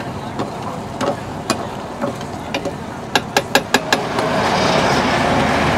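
Metal ladle knocking against a cooking pan while stirring chicken in gravy: scattered single knocks, then a quick run of about six strikes around three seconds in, after which a steady hiss builds.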